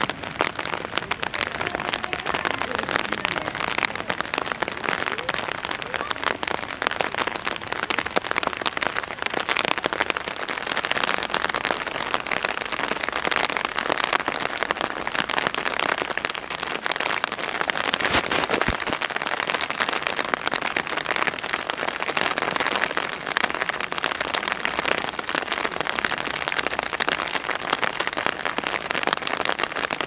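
Heavy rain falling on concrete and other hard surfaces: a dense, steady patter of drops.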